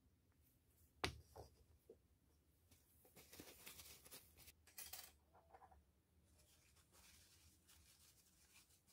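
Near silence with faint handling noises: a sharp click about a second in, then a few seconds of light rubbing and scraping.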